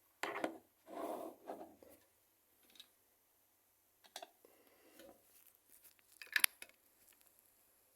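Small handling sounds as a 1/64 diecast model car is handled and set on a display turntable: rustles in the first two seconds, then a few light clicks and taps, the sharpest about six seconds in.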